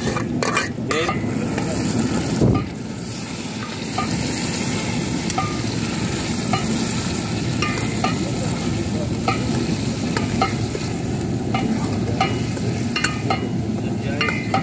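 Raw chicken sizzling in hot oil and onions in a large aluminium pot as it is tipped in, then stirred with a long metal spoon. Light clinks come every second or so as the spoon strikes the pot, over a steady frying hiss.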